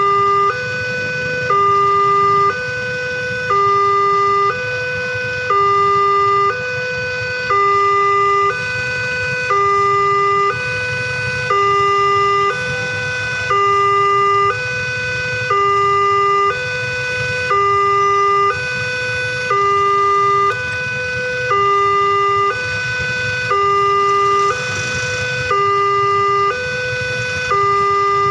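Railway level-crossing warning alarm sounding its two-tone electronic signal, switching between a higher and a lower tone about once a second without a break. It is the warning that a train is approaching and the crossing is closed.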